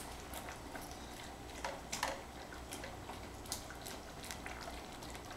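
Thick soup being stirred with a spatula in a stainless steel pot: soft wet sounds and irregular small clicks, a few louder about two seconds in.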